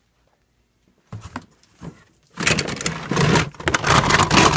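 Plastic toy train track pieces clattering and scraping in a cardboard box as a hand rummages through them: a few knocks at first, then dense, loud clattering from about halfway through.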